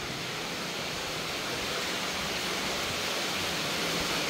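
Steady rushing of an underground stream in a limestone cave, sounding like a waterfall and slowly growing louder.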